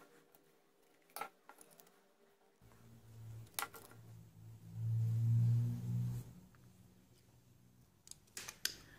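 Sharp plastic clicks from handling, then an LED gel-nail curing lamp humming low and steadily as it cures the gel polish, loudest about five to six seconds in.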